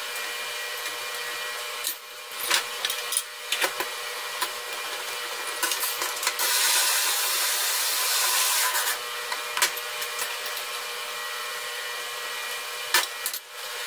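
Steel parts and hand tools clinking and knocking on a metal workbench as square steel tubing and all-thread rods are handled, with a scraping rub lasting a couple of seconds near the middle. A steady hiss and faint hum lie underneath throughout.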